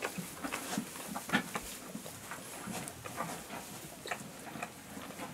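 Livestock guardian dog licking and nibbling at its own fur: irregular wet clicks and soft rustling.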